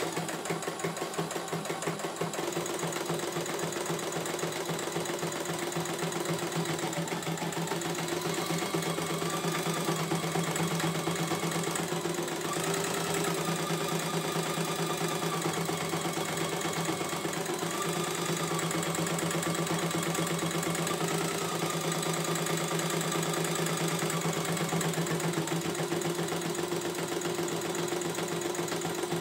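CNY E900 computerised embroidery machine stitching steadily: a fast, even needle rhythm over a steady hum, with a faint whine that steps up and down in pitch now and then as it works through the design.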